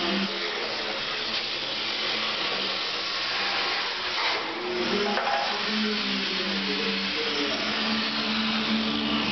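Steady, loud hissing of a power tool cutting away the body sheet metal of a 1989 Isuzu Trooper, with background music of stepped notes underneath.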